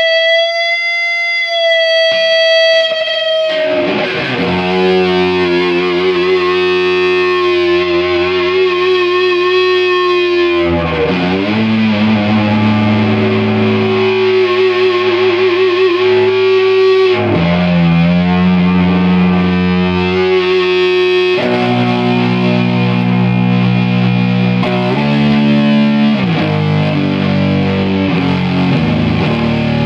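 Electric guitar played through a home-built compressor/fuzz/sustainer effect circuit, fuzzed and heavily sustained. A single high note is held for about three seconds, then low notes and chords ring on at length with a wavering pitch, changing every few seconds, and quicker notes come in near the end.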